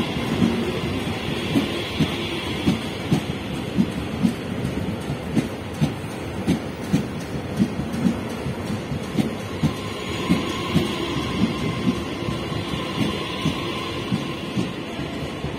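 Electric commuter train passing close alongside the platform, its wheels clacking over rail joints a few times a second over a steady rumble, with a faint steady whine that fades and returns about ten seconds in.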